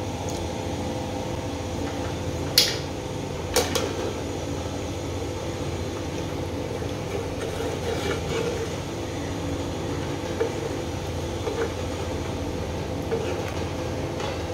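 Wooden spatula stirring a thick curry in a metal pot, with a sharp clink of a utensil against the pot about two and a half seconds in and a second knock a second later. Under it a steady low hum.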